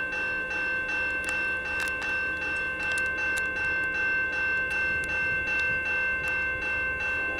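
Railroad grade-crossing warning bells ringing steadily, about two strikes a second, signalling an approaching train.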